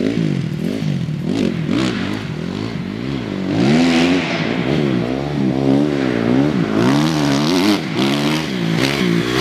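Motocross dirt bike engine revving up and falling back again and again as the rider works the throttle across the track. It gets louder about a third of the way in as the bike comes closer.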